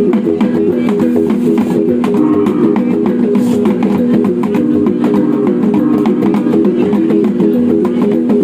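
Sumbanese gong ensemble playing Woleka dance music: rapid, continuous strikes on several tuned gongs at different pitches, in a steady repeating pattern.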